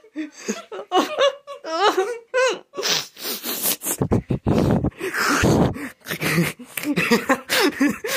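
A person laughing wildly in short voiced bursts, with loud breathy gasps near the middle.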